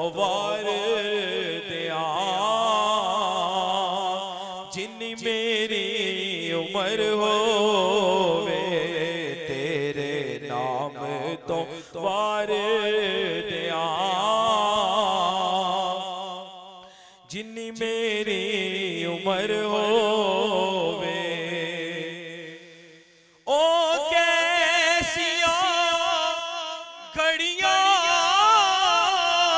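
A male naat reciter sings a Punjabi naat unaccompanied into a microphone, in long drawn-out phrases that waver in pitch, with short breaks between them. A low, steady hum holds beneath the singing until a pause about 23 seconds in; after that the voice comes back higher, without the hum.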